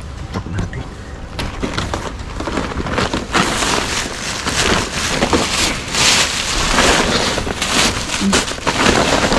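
Dense crackling and rustling of plastic bags and rubbish being rummaged through, getting much louder about three seconds in.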